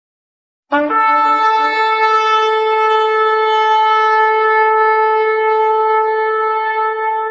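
Shofar blown in one long blast that starts abruptly, opens with a brief lower note, then settles on a single steady, loud note that is held on.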